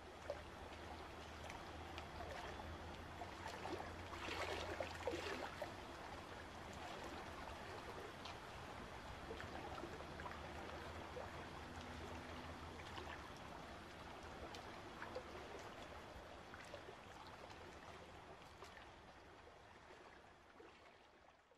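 Faint ambience of gently moving water, trickling and lapping with small splashy ticks over a low hum, fading in at the start and out at the end.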